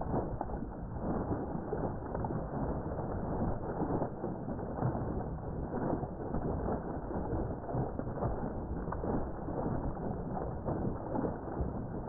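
Water gushing up into a pond and splashing and churning at the surface, a steady rushing noise with small irregular splashes.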